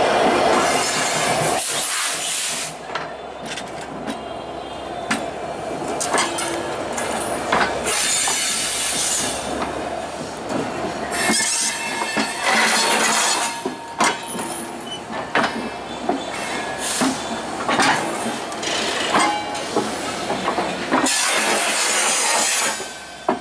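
A diesel-hauled passenger train running past: the locomotive's engine is loud for the first second and a half. Then comes the steady rumble of the coaches, with sharp knocks at uneven spacing as the wheels go over a rusty bolted rail joint that is billed as a bad joint, and three louder rushing stretches as bogies pass.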